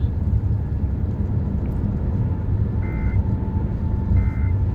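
Emergency Alert System end-of-message data tones: two short buzzing bursts about a second apart, starting near the middle, over a steady low rumble.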